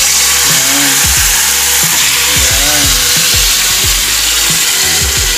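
Marinated chicken sizzling in hot oil in a wok, just added to garlic fried golden brown: a loud, steady hiss.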